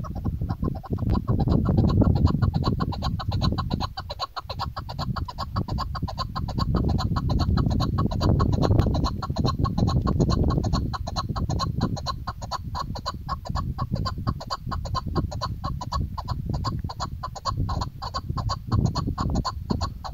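Female chukar partridge calling a long, rapid, evenly spaced run of clucking 'chuck' notes, with wind noise on the microphone underneath.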